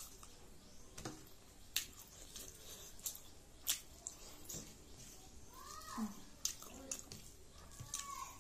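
Close-miked eating sounds of rice and dal eaten by hand: wet lip smacks and chewing clicks scattered through. About six seconds in a short tonal sound falls in pitch, and a brief tone follows near the end.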